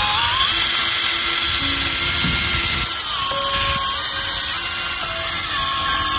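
Makita DTD157 brushless 18V cordless impact driver running free with no load: a steady high motor whine whose pitch steps down and back up a few times as the speed changes.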